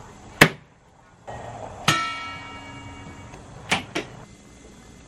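A single bright metallic ping about two seconds in that rings on and fades over about a second and a half, typical of a canning jar lid sealing as hot jars of chicken broth cool. A sharp click comes before it and two short clicks follow near the end.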